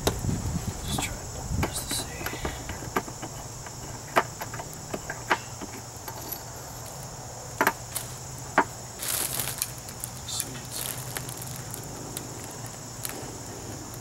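Steady high insect chirring, with a dozen or so sharp separate clicks and short crinkling rustles as a foil balloon is squeezed and a long utility lighter is clicked at a Bunsen burner.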